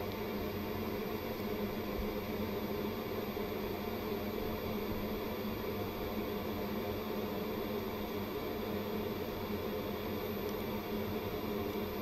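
Steady hum of electrical bench equipment, running evenly with no changes, with a constant thin high-pitched whine above it.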